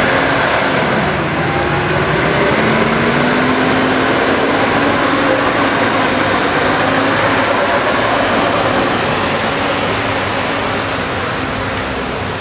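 Forestry skidder's diesel engine working under load as the machine drives through deep mud, its note rising and falling.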